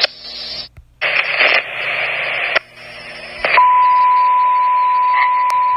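Fire department two-way radio channel between transmissions: bursts of static hiss with brief drop-outs, then about halfway through a single steady high-pitched tone keyed over the channel and held for about three seconds.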